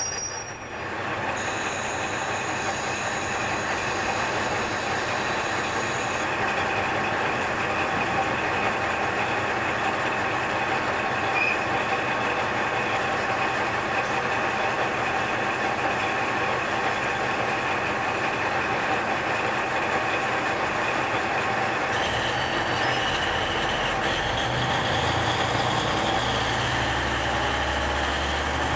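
Diesel engine of a KiHa 47 railcar running steadily as it stands at the platform. Near the end the engine throttles up with a growing low rumble and a rising whine as the railcar starts to pull away.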